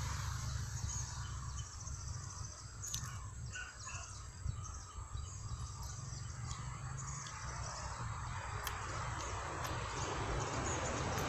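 Faint outdoor ambience: a steady low wind rumble on the microphone, with scattered bird chirps and insect noise, and a few light clicks.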